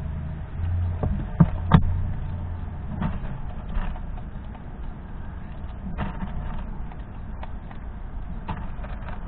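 Fox squirrel cracking sunflower seed shells: scattered small clicks and crunches. There are two louder knocks about a second and a half in, and a low rumble that fades out after the first two or three seconds.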